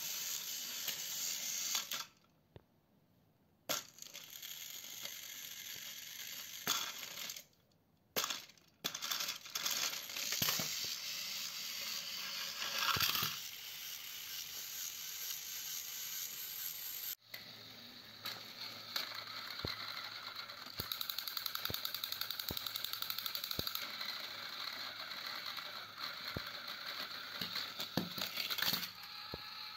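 Small battery-powered toy train engines whirring, their gear motors and plastic wheels buzzing with rapid ticking and frequent plastic clicks and clatter as the engines and wagons knock about and tip over. The sound stops briefly twice in the first nine seconds.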